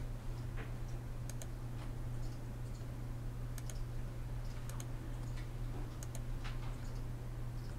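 Computer mouse clicks and keyboard key presses, scattered and irregular, over a steady low hum. The clicks come from switching between the select and eyedropper tools with a modifier key and clicking shapes to fill them with colour.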